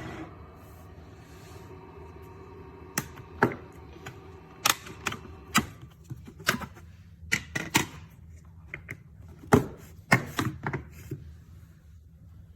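Irregular sharp clicks and knocks, about fifteen over several seconds with a faint low hum underneath, as plastic parts of a Dreame H12 Pro wet-dry vacuum are handled.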